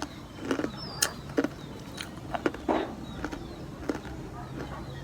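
Close-up eating sounds: irregular crisp crunches and mouth clicks of someone chewing sweet potato fries, several a second at uneven spacing.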